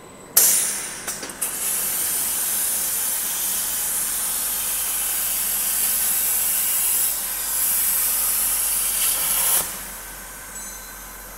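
Plasma cutter cutting through a 160 mm, 3 mm-walled steel tube as it comes off the roll forming line: a loud, steady hiss that starts suddenly about half a second in and cuts off about a second and a half before the end.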